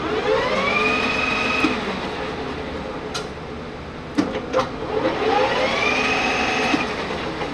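Metal lathe started twice from its freshly repaired forward/reverse lever. Each time the motor and spindle whine up to speed over about a second, run briefly and stop with a click, as the repaired control is tried out.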